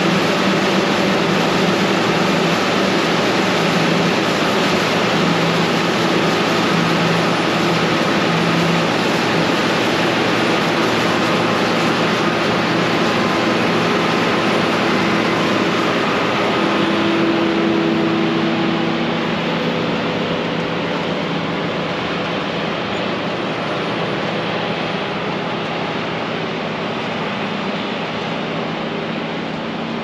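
Steady machine noise: a dense rush with several steady hums in it, easing slightly about two-thirds of the way through.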